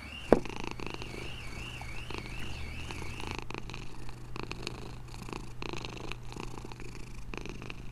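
A drinking glass set down on a wooden tabletop with one sharp clack, over a faint background of low steady hum and scattered soft clicks. A high warbling tone rises and falls quickly and stops about three seconds in.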